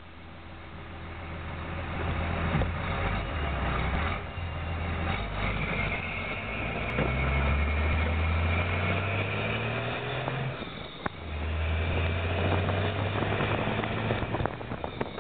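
1994 Dodge Ram 2500's 12-valve Cummins turbo-diesel, through a 4-inch turbo-back exhaust and a homemade muffler, pulling hard under acceleration. The engine note climbs, falls off sharply at gear changes about 4 and 11 seconds in, and climbs again, with a high turbo whistle over it while under load.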